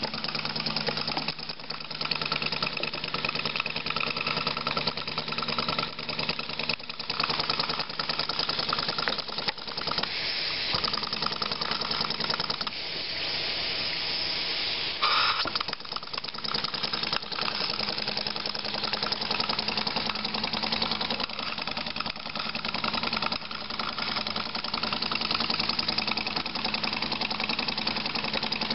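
Small model steam engine running, with a fast, steady chuffing clatter and hissing steam. A short, louder burst comes about halfway through.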